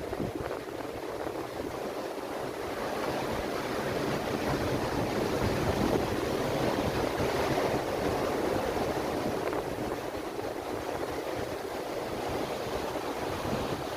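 Ocean surf washing onto the beach: a steady rush of breaking waves that swells a little around the middle, with low wind buffeting on the microphone.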